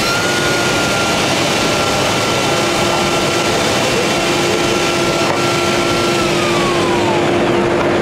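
Festool TKS 80 table saw running with no load, its motor whine steady, then falling in pitch about six seconds in as it is switched off and the blade spins down. A steady rushing noise runs underneath.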